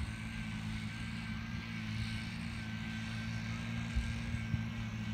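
Steady low machine hum with a faint high whine over it, and a couple of soft knocks about four seconds in.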